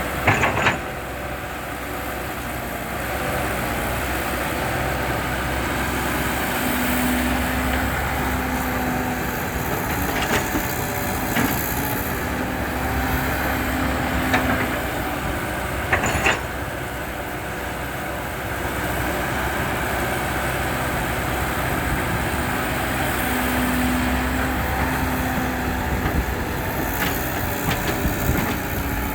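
Diesel engine of heavy earthmoving machinery running steadily, with a humming tone that comes and goes. Two loud metal clanks stand out, one right at the start and one about halfway through.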